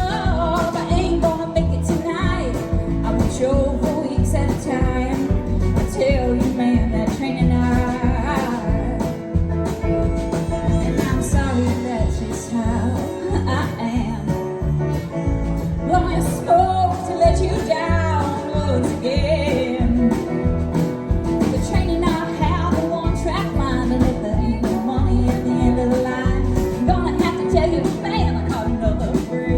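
Live country band playing a song: a steady drum and bass beat with guitar, and a lead melody line wavering over it.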